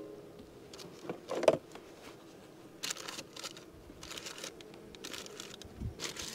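Faint, intermittent rustling and crinkling of gloved hands handling material beside an open beehive, with one short, louder sound about a second and a half in.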